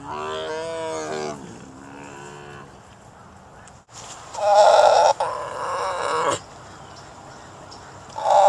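Tiger roaring in long, pitched calls: one falling in pitch at the start, a fainter one after it, and a louder call about four seconds in lasting about two seconds, with another starting near the end.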